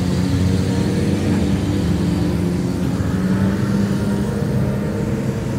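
Motorcycle engine running steadily at a low, even speed.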